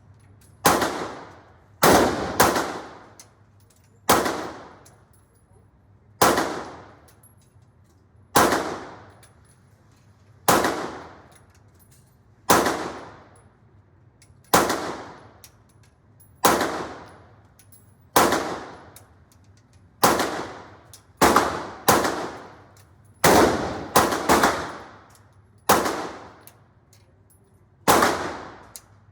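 Single gunshots fired at a steady pace, about one every second or two with a few quick doubles, each ending in a long echoing tail from the indoor range.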